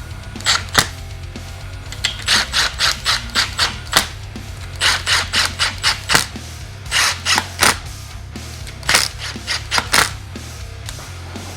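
Short rasping clicks in bouts of several, about three or four a second with pauses between, from a ratchet or torque wrench tightening the engine's side-cover bolts. Background music plays underneath.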